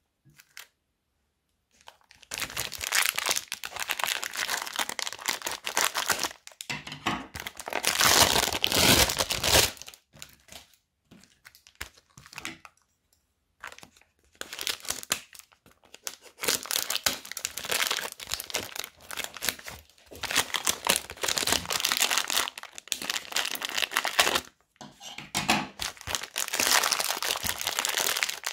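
Plastic bags full of polystyrene foam beads crinkling as they are squeezed and handled, in stretches of several seconds with short pauses. The first two seconds are nearly silent.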